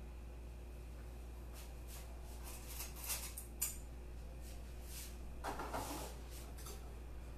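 Faint kitchen handling sounds: a few light clicks and knocks of utensils and pans, and a brief scrape near the end, over a steady low hum.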